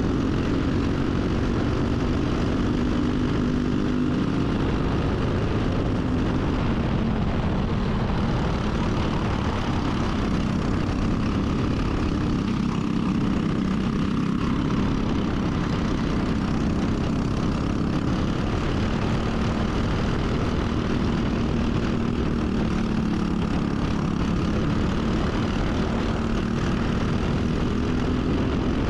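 Briggs & Stratton four-stroke racing kart engine running hard on track, a continuous buzzing note whose pitch rises and falls slowly with the throttle through the laps.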